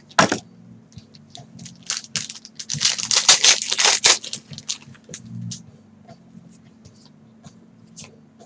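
Trading card pack wrapper being torn open and crinkled by hand, loudest about three to four seconds in, after a sharp tap just at the start. It ends in light ticks and rustles as the cards are handled.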